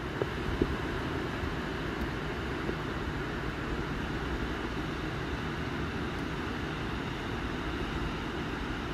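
Steady rushing outdoor noise over a flooded town, with no distinct events standing out.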